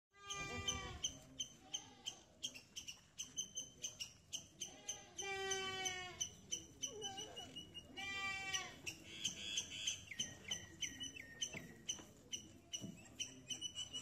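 A goat bleating three times: drawn-out, quavering cries at the start, about five seconds in and about eight seconds in. Short high chirps and clicks repeat throughout.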